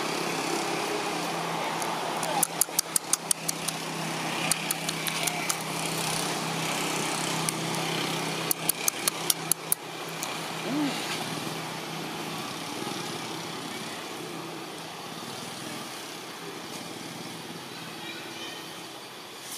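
A motor vehicle's engine running steadily in the background, fading away about two-thirds of the way through. Over it come several quick runs of sharp clicks between about two and ten seconds in.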